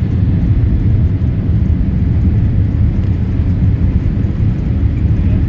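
Steady low rumble of a Boeing 787 Dreamliner heard from inside its cabin as the airliner moves along the ground at night: jet engine noise mixed with the rumble of rolling on the tarmac.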